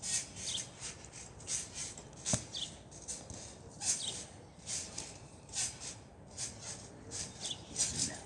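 Trampoline springs squeaking over and over as someone bounces, short high squeaks coming about once or twice a second, with one sharp click about two and a half seconds in.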